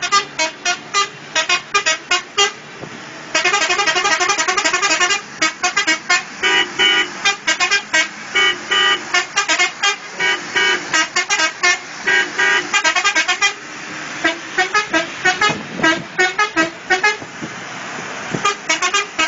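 Vehicle air horn playing a rhythmic pattern of short toots, with a fast rapid-fire run about three seconds in and a few slightly longer held notes.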